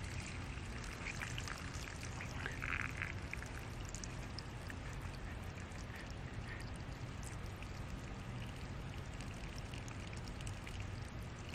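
Water from a live copper line running out of the open pipe end and splashing onto gravel, a faint steady pour.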